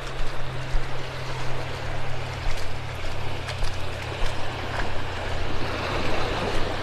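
Shallow beach surf washing and swirling, with soft footsteps about every three-quarters of a second from someone walking along the shore.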